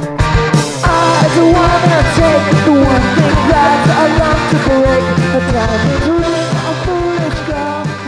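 Rock music with a singing voice, guitar and a steady drum beat, beginning to fade out near the end.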